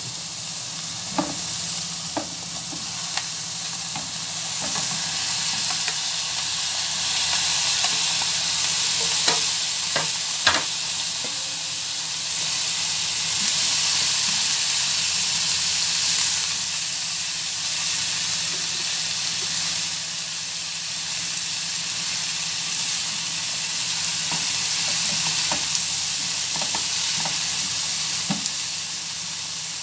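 Strips of liver frying in hot oil with sliced onion and green pepper, a steady sizzle that grows louder a few seconds in. The food is stirred and turned with a silicone spatula, which ticks against the pan now and then.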